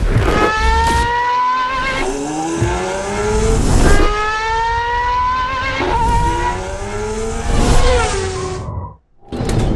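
Racing car engine accelerating hard through the gears: its pitch climbs, drops back at each upshift and climbs again, about four times. Near the end it cuts off abruptly to near silence for a moment.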